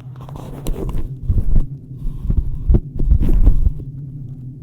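Headphones being handled and fitted over in-ear binaural microphones: irregular rubbing and low thumps against the mics for about three and a half seconds, over a steady low hum of simulated airplane cabin noise played in the background.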